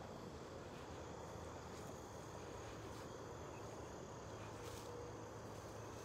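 Crickets and other insects trilling steadily in tall grass, a thin, high, unbroken chorus, with a few faint footsteps or rustles.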